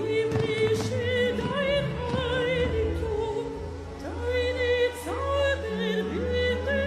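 A woman singing into a microphone, holding long notes with a wide vibrato over instrumental backing with a steady bass.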